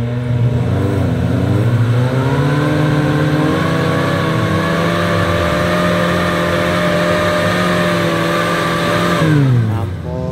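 Suzuki Katana's small four-cylinder engine revving up under load on a muddy climb, held at steady high revs for several seconds, then the revs drop off about nine seconds in.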